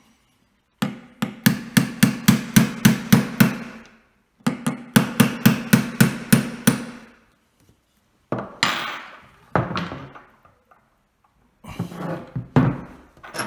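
Small hammer tapping a brass drift punch to drive a pin into the action body of a .310 Martini Cadet rifle: two quick runs of about ten light metallic taps, roughly four a second, then a few slower, separate knocks.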